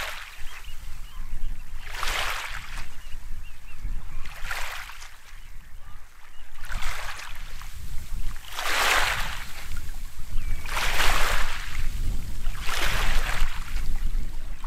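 Small waves lapping onto a pebble and shingle shore, each wash swelling and fading about every two seconds, over a steady low rumble.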